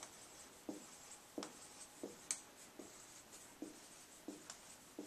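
Dry-erase marker tapping dots onto a whiteboard: a string of short, faint taps, about two a second.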